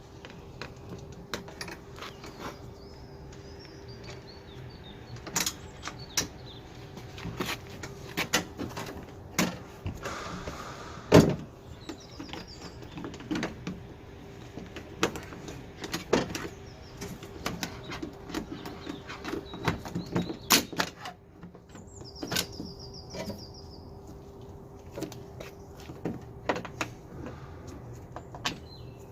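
Scattered clicks, taps and knocks of an Alfa Romeo GT exterior door handle and its linkage rods being worked back into the steel door shell by hand, with one louder knock about eleven seconds in. A faint steady hum runs underneath.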